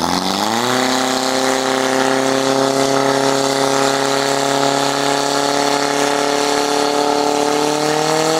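Portable fire pump engine revving up sharply in the first second, then held at high, steady revs as it drives water through the hoses to the targets; its pitch climbs a little higher near the end.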